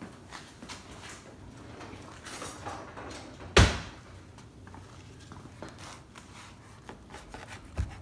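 Kitchen handling noises: light clicks and knocks, with one loud thump about three and a half seconds in.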